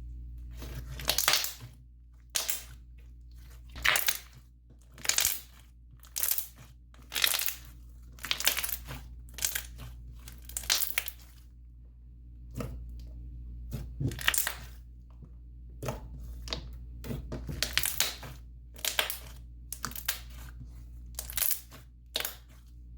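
Thick slime being squished and stretched by hand, giving short wet crackles and bubble pops about once a second, some in quick clusters.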